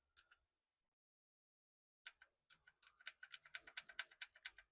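Keys of a Jedel WKL102 wireless mechanical keyboard clicking as they are pressed: a couple of presses at the start, a pause, then from about two seconds in a quick run of presses, about four or five a second. These are function-key plus arrow-key presses stepping through the backlight's speed and brightness settings.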